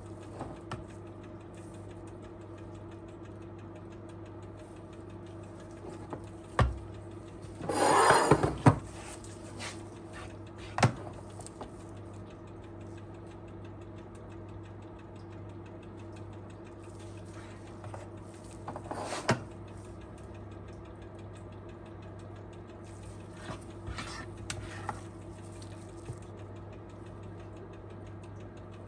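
Kitchen handling sounds: scattered knocks and a brief clatter of utensils or baking tins, over a steady appliance hum.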